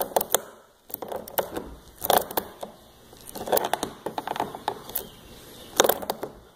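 Irregular clicks and clacks of pliers gripping and turning a brass air chuck fitting as it is tightened into a threaded PVC end cap, with a denser run of clicks around the middle.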